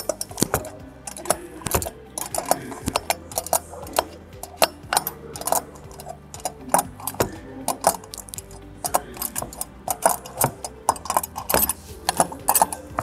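Steel open-end spanner clinking against the bolts of a turbocharger's turbine housing as they are tightened: a run of irregular metallic clicks, several a second.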